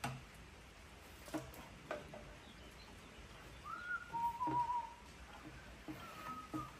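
A few short whistled notes: one rising, then one wavering note held for under a second, and another near the end. Under them are faint knocks as rubber V-belts are worked onto the lathe's pulleys by hand.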